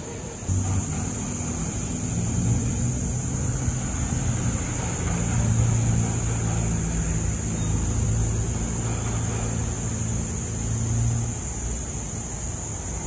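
A motor vehicle's engine running with a steady low hum from the street beside the park, easing off about eleven seconds in, over a constant high hiss.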